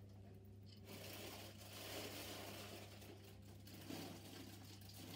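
Faint rustling, squishing handling noise of slime being worked in the hands, loudest in the middle, over a steady low hum.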